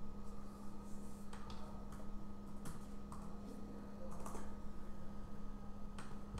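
Steady low hum with a fainter high tone, broken by a few scattered, irregular light clicks and taps.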